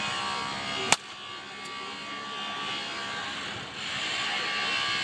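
Baseball practice ambience: a steady outdoor hum with one sharp crack about a second in, after which the background turns quieter.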